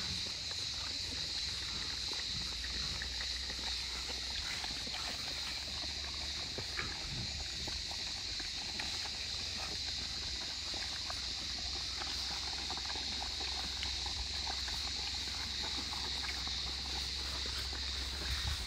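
A steady high-pitched drone over a low wind-like rumble, with faint scattered small clicks.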